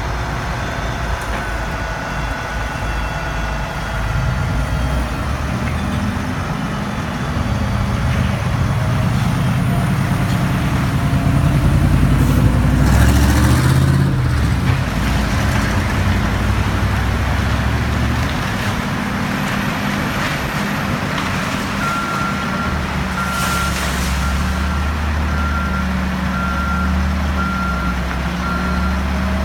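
Peterbilt semi tractor's diesel engine running steadily while its end-dump trailer is tipped up to unload demolition debris. The rumble grows louder through the middle, with rattle and clatter. Near the end a reversing beeper sounds about once a second.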